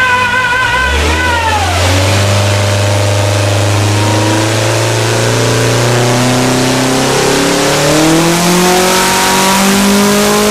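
Air-cooled Volkswagen Type 1 flat-four engine with twin carburettors, running on an engine dyno. A wavering higher note falls away in the first two seconds, and the engine settles at low revs. Then its pitch climbs slowly and steadily as it is loaded through a power pull.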